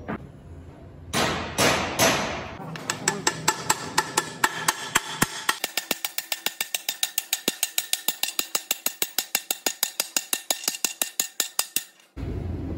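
Hammer blows on a steel driver plate, seating a steel repair sleeve into the bored bearing bore of a truck gearbox housing: a few separate heavy blows, then rapid even metallic taps, about six a second, each with a short ring. Near the end the taps stop and a steady machine running noise takes over.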